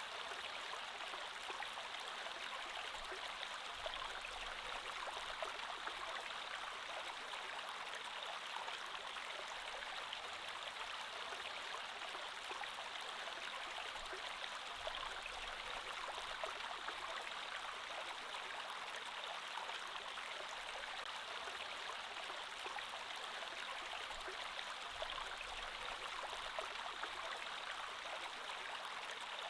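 Creek water flowing steadily over stones, an even rushing and trickling with no breaks.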